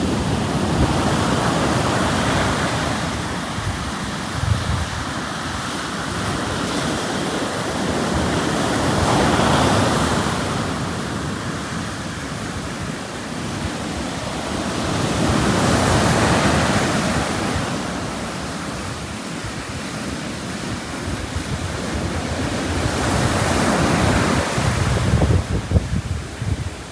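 Sea waves breaking and washing up a beach, the surf swelling and falling away about every seven seconds, four times.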